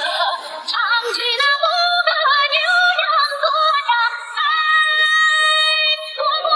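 Background music with a high female singing voice, its notes bending and some held for a second or more.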